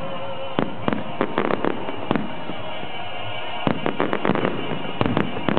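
Aerial firework shells bursting overhead in quick clusters of sharp bangs, with a lull of about a second and a half midway before another rapid volley.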